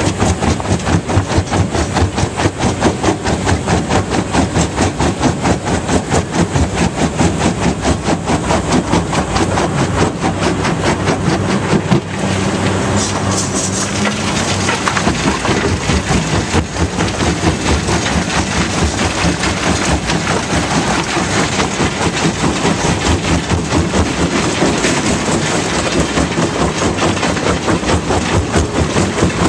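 Fintec 1107 mobile jaw crusher running under load, crushing limestone: a steady engine drone under a fast, even rattle of rock being fed and broken in the jaw. About halfway through there is a brief high scrape.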